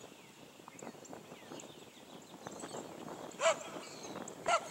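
Dog's feet pattering on an agility dog walk plank, a run of quick light taps that grows busier toward the end. Two short high-pitched voice calls come about a second apart near the end.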